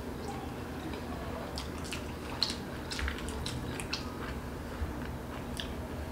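Mouthfuls of whole steamed veg momos being chewed: wet, squishy smacks and short irregular mouth clicks. The dumplings are hot enough that the eater chews with the mouth open.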